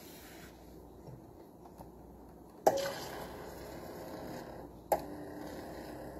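Ninja CFN601 espresso and coffee machine: a sharp click, then a small motor runs with a steady hum. A second click comes near five seconds and the hum goes on at a slightly changed pitch.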